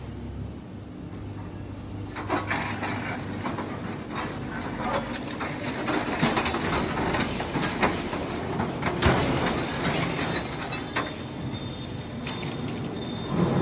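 Continuous metal scrap shearing machine at work: a steady machine hum under irregular clanking and clattering as cut steel scrap is pushed out of the discharge. The clanks start about two seconds in and keep up at an uneven pace.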